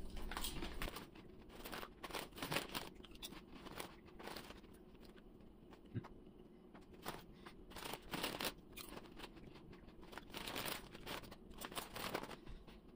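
Lay's potato chips being bitten and chewed: a run of irregular crisp crunches, with the chip bag crinkling now and then as it is handled.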